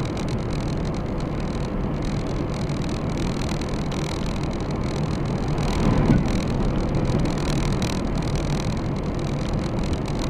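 Steady road and engine noise inside a car cruising at about 86 km/h, with a brief louder swell about six seconds in.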